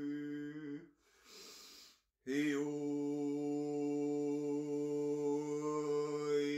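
A man's voice intoning one long, steady chanted note. It breaks off just under a second in for a short breath, and after a moment of silence the same note is taken up again and held, its tone colour shifting slightly near the end.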